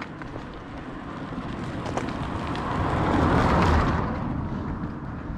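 A car passing on the road, its tyre and engine noise swelling to a peak about halfway through and then fading away.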